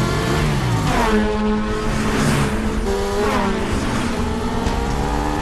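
Several sport motorcycle engines running hard at high speed. Their pitch climbs and drops as they rev and shift, with falling sweeps about a second in and again past three seconds.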